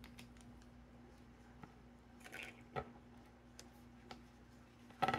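Faint squishes and small clicks of fingers kneading and stretching a clay-type fluffy slime, over a low steady hum. A brief louder sound comes near the end.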